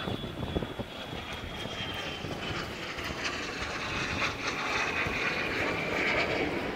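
Engine noise of a passing vehicle slowly growing louder, with a thin high whine that gradually falls in pitch.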